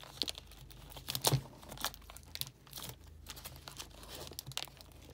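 Scissors cutting open the sealed wrap of a cardboard trading-card box, with irregular crinkling and tearing of the packaging. The sharpest crackles come about a second in.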